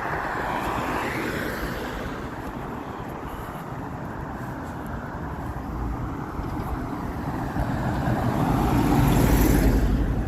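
Strong gusty wind on the microphone mixed with the noise of road traffic, swelling louder near the end.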